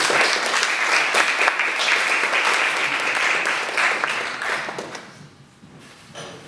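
Audience applauding after a talk, dying away about five seconds in.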